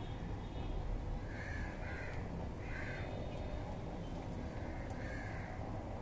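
Crow cawing: three harsh caws in quick succession about a second and a half in, then one more near the end, over a steady low background rumble.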